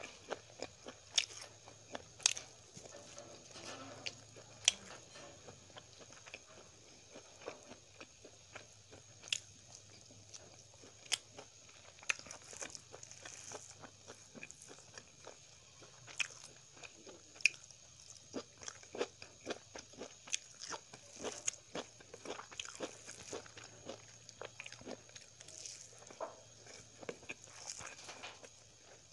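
Close-up mouth sounds of someone eating fried chicken and rice by hand: chewing with irregular sharp crunches and wet mouth clicks, some louder bites standing out, over a faint steady hum.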